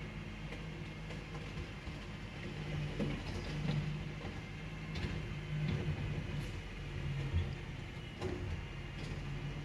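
Rear-loader garbage truck's engine and hydraulics running steadily while the bin lifter tips and then lowers a wheelie bin, with several metal clanks and knocks from the lifter and bin.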